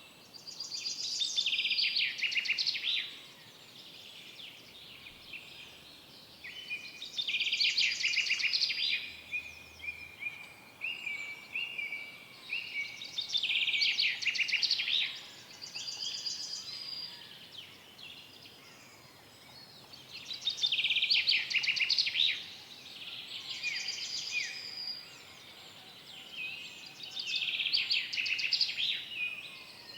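A songbird singing in a forest, repeating a short, fast, trilling song phrase about every six seconds, five times, over a faint steady background hush.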